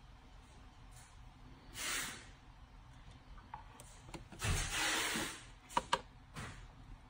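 Motor oil pouring from a quart bottle into an engine's valve-cover oil filler, the first quart going into an empty pan: two hissing rushes of oil and air gulping through the bottle neck, then two sharp clicks of the bottle against the filler near the end.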